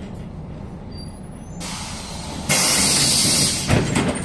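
Compressed-air hiss from a MAZ-105 city bus's pneumatics as it stands at a stop. A softer hiss starts about a second and a half in. A loud hiss about a second long follows, then a single thump near the end.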